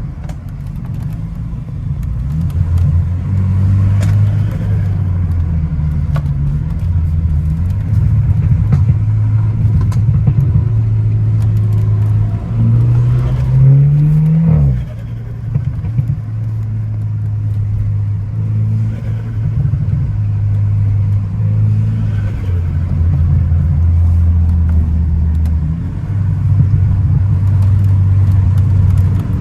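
Car engine running under load at mostly steady revs, with one rise in revs about 13 seconds in that cuts off sharply about two seconds later, as at a gear change or a lift off the throttle.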